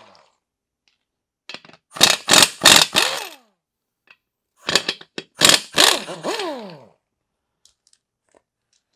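Ingersoll Rand 2235 half-inch air impact wrench running in reverse, hammering tractor lug nuts loose in short bursts. After each burst the motor's whine falls in pitch as it spins down.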